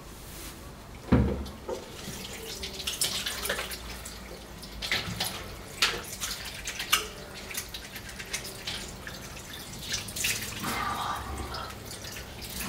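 Water from a tap running into a bathroom sink, with irregular splashes and drips. There is a dull thump about a second in.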